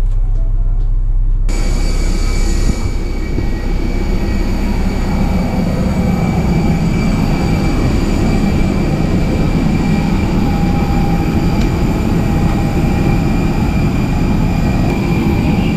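A low vehicle rumble cuts off about a second and a half in. It is replaced by the loud, steady rush and high whine of a parked jet airliner on an airport apron.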